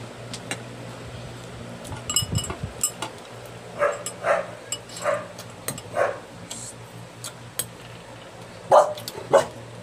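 A dog barking in short single barks, several times over, with the two loudest barks near the end. Spoons and forks clink against a bowl about two seconds in.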